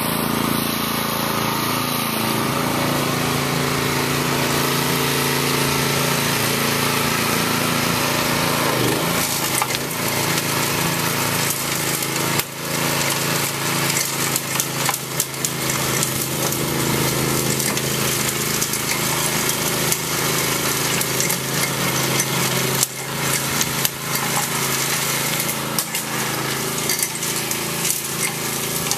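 Small gas engine of a walk-behind trencher running steadily as it cuts rows in the soil, with irregular clicks and knocks from soil and stones, more of them from about ten seconds in.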